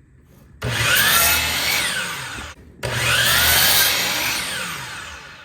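Electric power saw cutting a pine fence picket to length, run twice in quick succession. Each run starts suddenly with a whine that rises and then winds down, the first about half a second in and the second near the middle.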